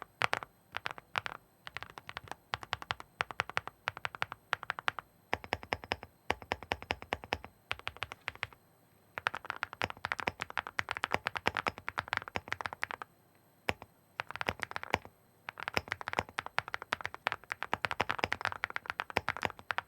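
Typing on an Epomaker Galaxy 70 mechanical keyboard fitted with heavy ceramic keycaps over HUANO Blossom Odyssey linear switches: fast runs of key strikes in bursts with a few brief pauses, giving a smooth sound.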